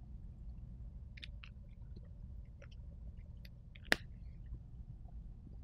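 Dry-erase markers being handled: a few faint clicks and taps, with one sharp click a little under four seconds in, over a low room hum.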